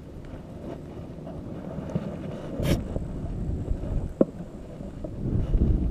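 Low rumbling wind noise on the microphone mixed with water sloshing around a wading angler's legs, growing louder near the end. One sharp click cuts through about two and a half seconds in.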